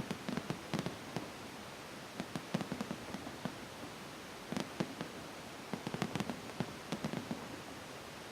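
Fireworks going off: groups of sharp crackling pops, several quick cracks at a time, with short lulls between the groups.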